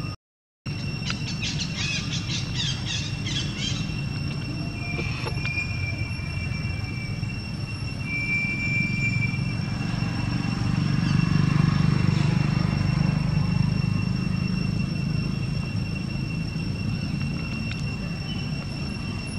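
Outdoor ambience: a steady high insect drone over a low rumble that swells about halfway through, with a flurry of quick high chirps a second or so in.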